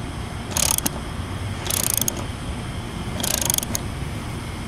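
Hand ratchet wrench clicking in three short bursts, one on each back-swing between strokes, as it tightens a lag bolt down through a roof-mount flashing foot.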